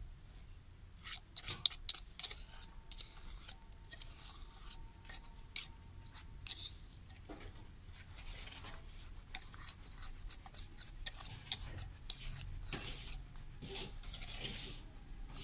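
Gritty rubbing and scraping of moulding sand worked by a gloved hand around a sand-casting mould, in repeated short rasps with scattered light clicks and taps.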